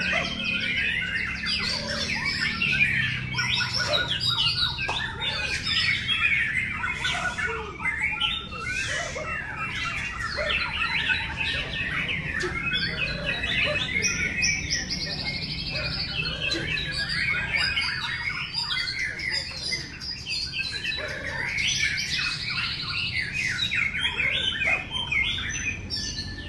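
Many caged white-rumped shamas (murai batu) singing at once: a dense, continuous chorus of overlapping whistles, trills and chips with no pause, the birds competing in a song contest.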